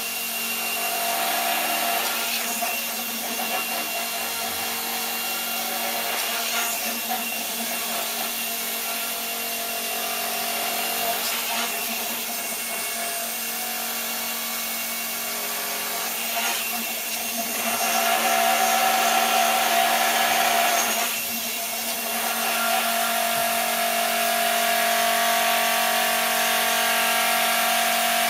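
Electric motors of a homemade gyroscopic inertial thruster whining steadily with the gyroscopes spinning, their loudness and pitch shifting every few seconds as the drive works to brake its pendulum swing, louder in the second half.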